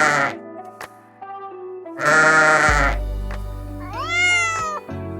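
A sheep bleats at the start and again about two seconds in. A cat meows once about four seconds in. Light background music runs underneath.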